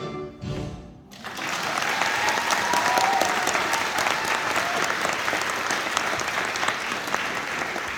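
The accompaniment of a musical number ends about a second in, followed by audience applause: many hands clapping, with a few voices calling out over it early on, tapering slightly near the end.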